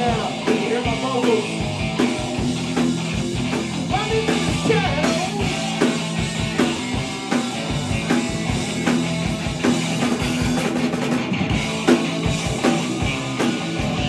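Rock band playing live, a drum kit keeping a steady beat under amplified instruments.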